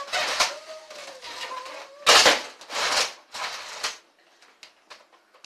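Nerf blaster firing foam darts: four sharp clacks, the loudest about two seconds in.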